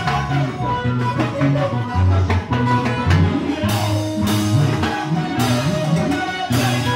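Live band playing upbeat Latin dance music: electronic keyboard lines over a pulsing bass and a drum kit with timbales, with cymbal crashes in the second half.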